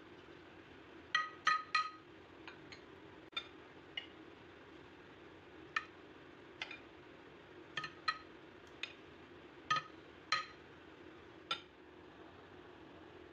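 A spoon clinking and tapping against a glass baking dish while sauce and yogurt are spread over eggplant slices: about fifteen irregular, ringing clinks, several in quick succession in the first couple of seconds, then scattered singly. A faint steady hum lies underneath.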